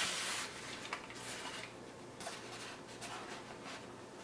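Faint rubbing and scraping as a model airplane's EPO foam fuselage is turned over in the hands. The loudest rub comes right at the start, followed by a few softer, shorter ones.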